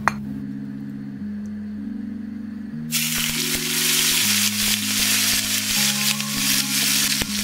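Background music with steady chords; about three seconds in, a sudden steady sizzle starts as an oil-and-herb-coated basa fish fillet fries in oil in a non-stick frying pan.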